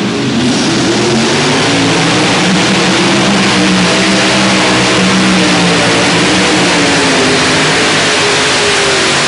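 Light Modified pulling tractor running flat out on engines taken from WWII tanks, dragging the weight sled down the track on a full pull. A loud, steady engine drone whose pitch wavers slightly.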